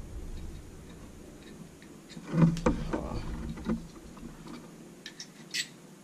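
Handling noise from hands working a Zippo lighter insert and a steel multi-tool: low rumbling bumps with a louder one about two and a half seconds in, and a few small clicks and taps near the end.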